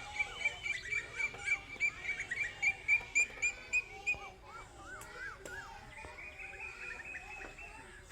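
Birds calling: a rapid run of short, high, repeated notes, about three a second, with lower arched calls mixed in, which stops about four seconds in. A thin, steady high tone follows near the end.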